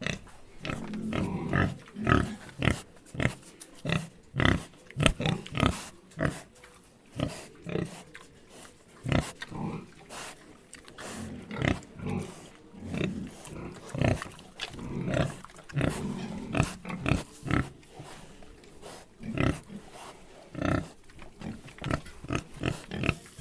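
Pigs grunting and oinking in many short, irregular calls, some in quick runs and some longer and drawn out.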